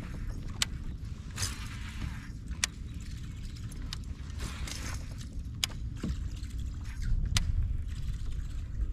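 Low steady rumble of wind and water around a fishing kayak while a topwater frog lure is cast and worked. Four sharp clicks are spread through it, with two short splashy hisses about one and a half and five seconds in.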